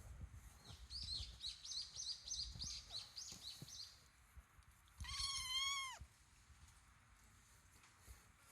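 A run of short, high chirps, about four a second for some three seconds, then about five seconds in a kitten gives one long meow lasting about a second.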